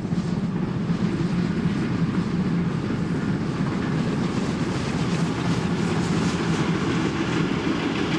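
Deutsche Bundesbahn class 64 2-6-2 steam tank locomotive working past with a passenger train, followed by its coaches rolling by with a run of fine clicks over the rails in the second half.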